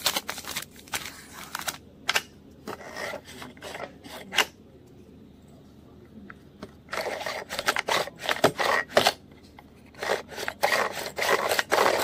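Crinkling and scraping of a red packet being opened and handled, in uneven bursts with short pauses, busiest from about seven seconds in and again near the end.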